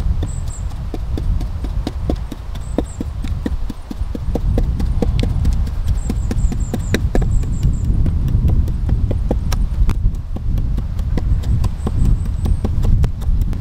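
Quick, irregular wooden knocks as moss is tapped and pressed into the gaps of a log wall, over a steady low rumble. A small bird gives high chirps in short runs several times.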